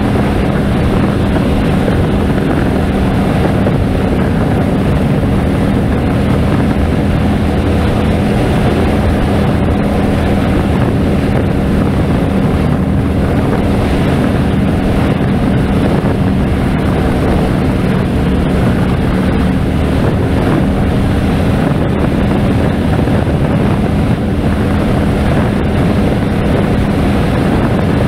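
Harley-Davidson Road King's V-twin engine running steadily at cruising speed, with wind noise on the microphone.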